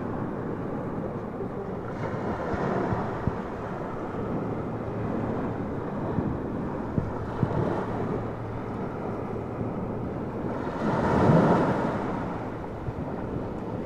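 Small waves breaking and washing up the beach in a steady rush, with wind buffeting the microphone. One wave surges noticeably louder late on.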